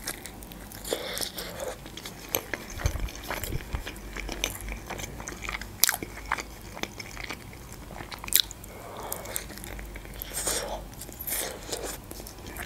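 Close-up eating sounds: biting into and chewing a boiled Georgian khinkali dumpling, with many short wet mouth clicks and smacks.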